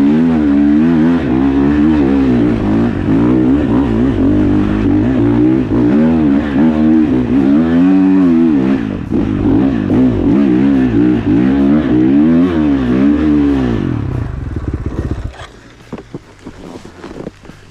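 Single-cylinder four-stroke engine of a KTM 450 SXF motocross bike working up a steep climb, its revs rising and falling quickly over and over as the throttle is worked. The engine sound cuts out about fifteen seconds in, leaving a few knocks.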